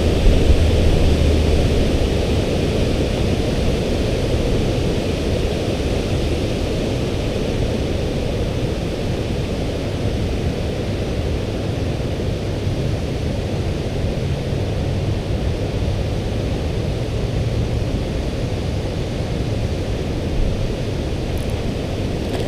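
Steady rushing noise of river current running over rapids, an even hiss over a low rumble.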